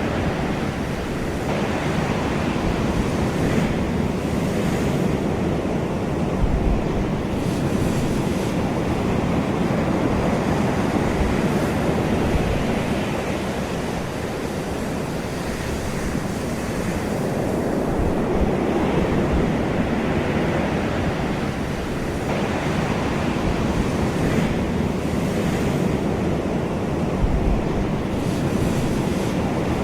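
Ocean waves breaking and washing onto a shore in a continuous rushing surf, swelling and ebbing every few seconds.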